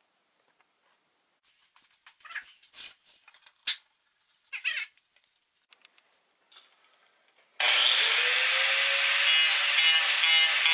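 A few quiet knocks and rustles of handling, then, about three-quarters of the way in, an angle grinder switches on, its whine rising as it spins up. It then runs steadily with a rough grinding as the metal carving disc cuts scallops into the edge of a wooden board.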